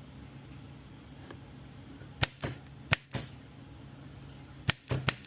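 Spring-loaded solder sucker snapping as it fires during desoldering, several sharp clicks each followed by a softer knock, over a steady low hum.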